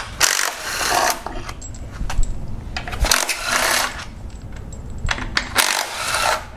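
Cordless impact driver running in three short bursts, about a second each, unscrewing timing-cover bolts from an engine block.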